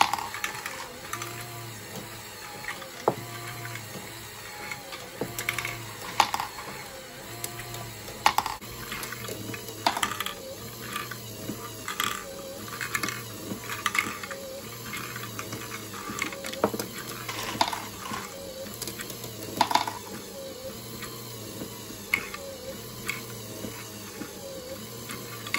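LEGO Great Ball Contraption module running: plastic gears and mechanism rattling in a regular cycle about once a second, with small plastic balls clicking and clacking through it.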